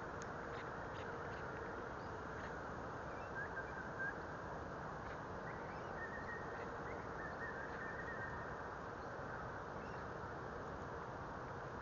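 Faint steady hum of a small RC plane's brushless outrunner motor and propeller flying high overhead, under a steady hiss. A few short high chirps, from birds, come about a third of the way in and again around the middle.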